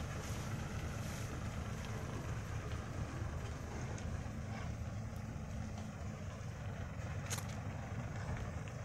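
Motor vehicle engine running steadily at low speed: a low, even drone. There is a faint short click near the end.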